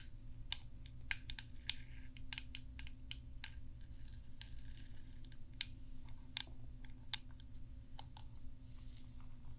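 Light, gentle tapping on a brush: irregular sharp little taps, about two or three a second, with faint scratchy rustles in between, over a steady low hum.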